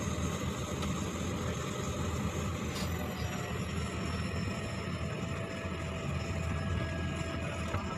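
Small passenger plane's engine running as heard inside the cabin while taxiing after landing: a steady low drone with a faint thin whine that slowly falls in pitch.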